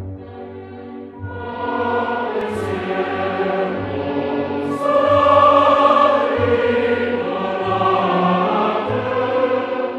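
Background choral music: a choir holding long notes over sustained accompaniment, swelling in about a second in and growing louder around the middle.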